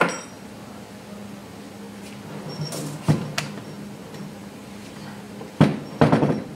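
Bare Toyota 7M-GE cylinder head being turned round on a wooden workbench: a knock as it is gripped, a few light metal clicks around the middle, then a loud knock and a short clatter near the end as it is set down on the bench.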